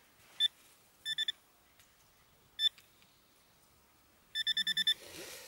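Metal-detecting pinpointer beeping as it is probed in a dug hole: a single beep, a quick triple beep, another single beep, then a fast run of about eight beeps near the end as the tip closes on the buried metal target. A soft rustle of soil follows the last beeps.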